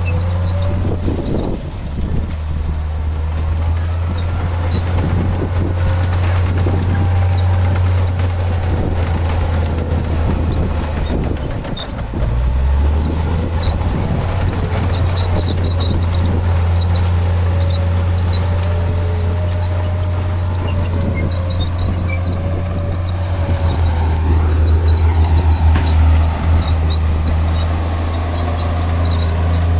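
Heavy diesel engine of an earthmoving machine running under load with a steady low drone, with a faint wavering whine above it. The drone dips briefly near the middle and pulses in a quick rhythm a few seconds before the end.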